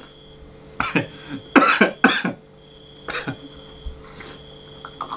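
A man coughing four times in the first three seconds or so, sharp separate coughs from a mouthful of chicken catching in his throat.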